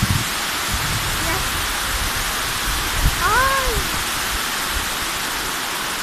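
Waterfall cascading over rocks, a steady rushing hiss. About three seconds in, a person's voice gives one short high call that rises and falls.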